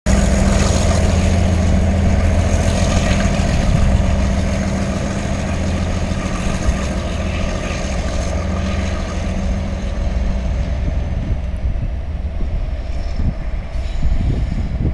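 Diesel-electric locomotive CP 1907 passing at walking pace, its engine running with a deep, steady drone and a thin high whine that sinks slightly in pitch. The drone eases a little after about four seconds. It is hauling sister locomotive 1904, which appears to be shut down, so only one engine is heard.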